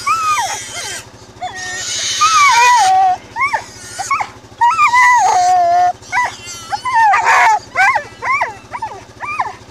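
Pig dogs holding a caught pig cry out in a string of short whining, squealing calls that rise and fall in pitch.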